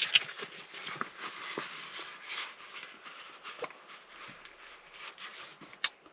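Small irregular clicks and rustling of hands working parts of a car's gear shifter loose, with one sharp click near the end.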